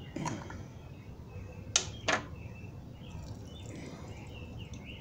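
Jar of minced garlic being opened by hand: a soft click at the start, then two sharp plastic clicks about two seconds in, a fraction of a second apart.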